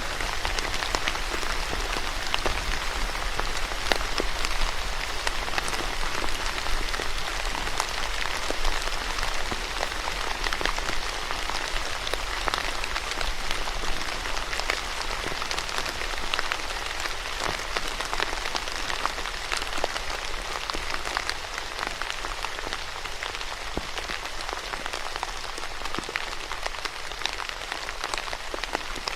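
Steady rain falling on a surface, a dense even hiss with many individual drops tapping through it.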